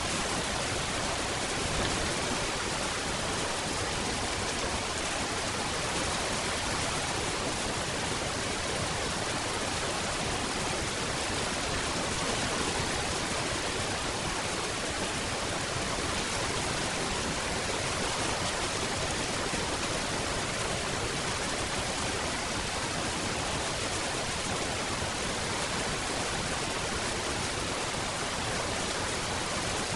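Steady rain falling, a dense even hiss with no single drops standing out.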